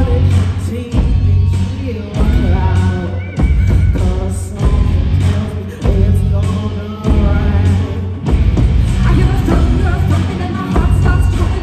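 Live rock show music: a heavy, pulsing bass beat with a singer's voice over it, played loud through the show's sound system.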